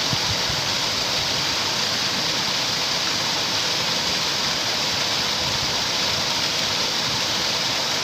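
Steady rush of falling water, an even hiss with no breaks, from water pouring through a lock and weir.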